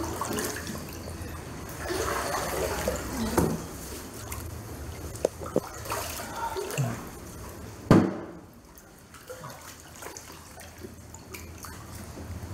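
Muddy floodwater sloshing and splashing inside a flooded room as someone wades through it, with a short click about five seconds in and a sharp knock about eight seconds in.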